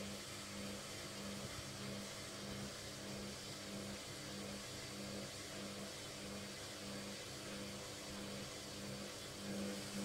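Logik front-loading washing machine running an intermediate spin: a steady motor-and-drum whir with a hum that swells and fades about twice a second.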